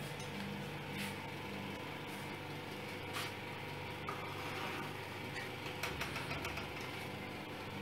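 Steady hum of a small electric motor running, with a few light clicks, several close together about six seconds in.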